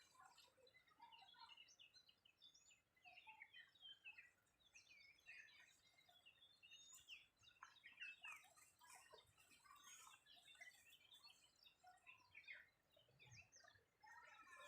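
Faint chorus of many small birds chirping and twittering, with short overlapping calls throughout.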